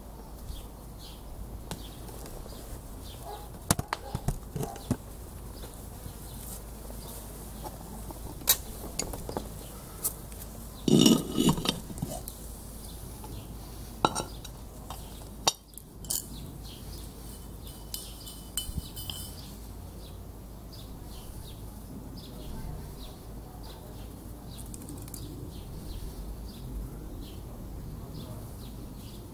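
Metal pot lid clinking and clattering against a black metal cooking pot as it is handled, lifted off and set down, a string of separate clinks with the loudest, longer rattle about eleven seconds in.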